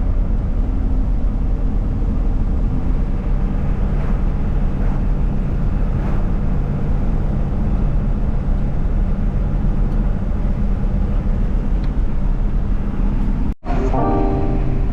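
1998 Chevy Express conversion van driving, a steady loud engine and road rumble heard inside the cab. It cuts off abruptly near the end and music begins.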